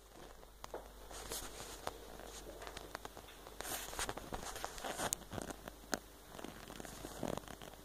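Faint rustling with many sharp little clicks and taps scattered irregularly, a cluster of louder ones between about four and six seconds in.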